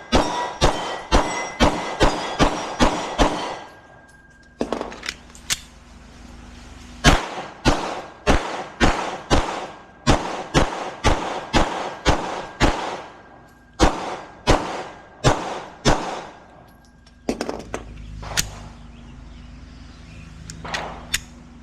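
Smith & Wesson M&P 2.0 pistol firing in quick strings of shots, about two or three a second, with short pauses between strings and a few single shots near the end.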